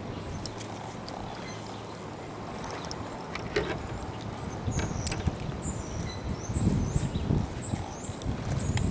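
Scattered clicks and handling noise as pliers work a hook free from a small catfish's mouth, over low rumble. From about halfway, birds chirp high and short.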